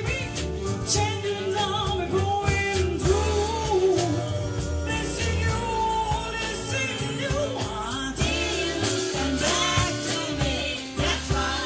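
A soul band playing live, with a lead vocal over drums, bass, guitar and keyboards.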